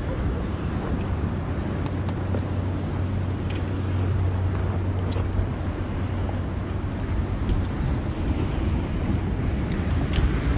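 Wind buffeting the microphone over water slapping around a small boat, a steady low rumble, with a few faint light clicks.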